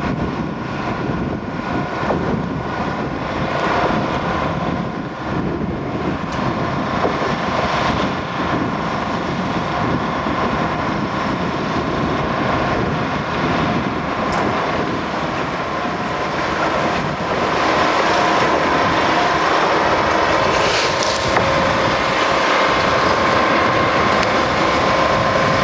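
Rail-lifting work train running: a steady mechanical drone with a sustained whine, growing louder about two-thirds of the way through as the machinery draws closer.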